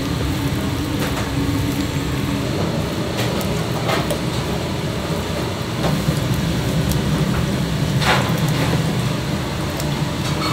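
Battered pork pieces deep-frying in a commercial fryer: a steady bubbling hiss of hot oil over a low rumble, with a few sharp clicks and splashes.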